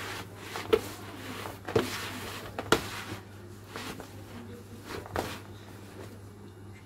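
Yeast dough being kneaded by hand in a plastic bowl: soft thumps and squishes as the dough is pressed and folded, about one push a second.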